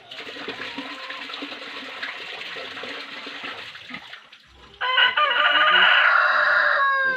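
Water runs steadily for about four seconds. Then a rooster crows loudly, one long call that drops in pitch at the end.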